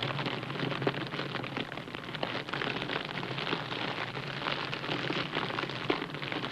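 TIG welding arc on stainless steel, a steady dense crackle and hiss over a low hum.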